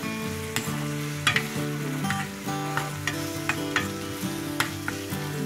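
Chopped onion and green chillies sizzling in a hot frying pan while a plastic spoon stirs them, scraping and tapping against the pan about ten times.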